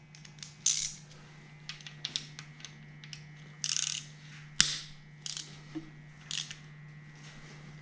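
Hand tools clinking and clicking: an 8 mm socket and ratchet being handled and set on the bolts of a Ford 4.6 V8's timing chain guides, with scattered short metallic rattles and one sharp click about halfway through, over a low steady hum.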